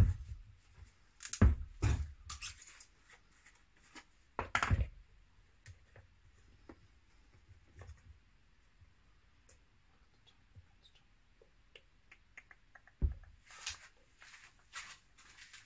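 Plastic squeeze bottles being handled on a wooden workbench: caps opened and clicked, a few sharp knocks and clacks in the first five seconds and again near the end, with light scraping and small ticks between.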